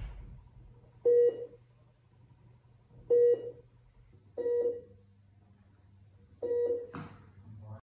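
Hospital bedside patient monitor beeping: four short, loud electronic tones about every one and a half to two seconds, over a faint low steady hum.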